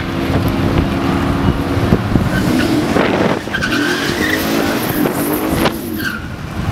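Drag cars at the starting line: a 2006 Pontiac GTO's 6.0-litre V8 idling while the car in the other lane revs hard and squeals its rear tyres in a burnout. The engine note holds steady for the first couple of seconds, then rises and falls with the revving.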